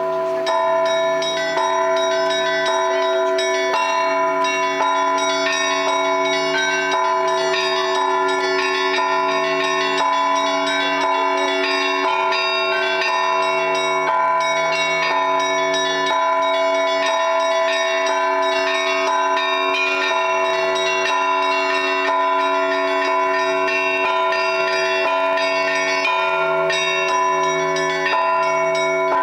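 Russian Orthodox church bells rung by a bell-ringer in a continuous festive Easter peal, many bells ringing together without pause. Small bells chime in quick figures over the steady, sustained tones of the larger bells.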